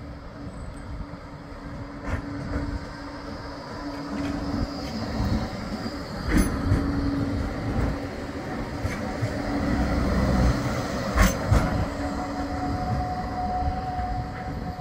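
Bombardier Flexity 2 tram passing close by on street track. The rumble of its wheels on the rails grows louder as it nears and passes, with a few sharp clacks from the wheels about halfway through and again after it passes. Near the end a thin wheel squeal sounds as it takes the curve.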